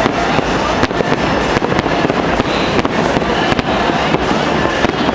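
Aerial fireworks display: a rapid, unbroken barrage of overlapping bursts and bangs.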